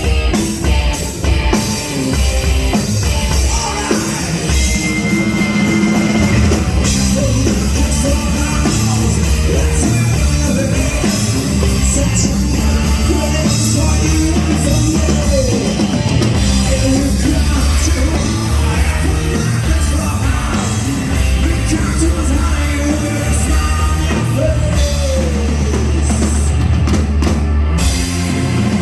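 Live blues-rock band playing: drum kit, bass and electric guitar.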